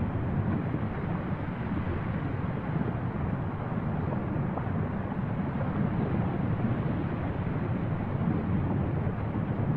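Steady low rumble of a volcanic fissure eruption, with lava fountaining from its spatter cone.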